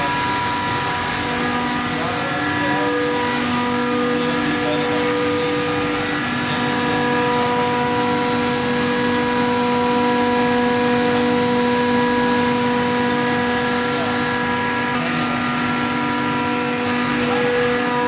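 Chiller plant machinery running: a steady, loud drone with several steady whining tones in it.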